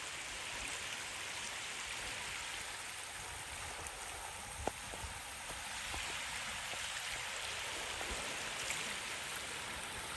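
Steady rushing of running river water, with one short click about halfway through.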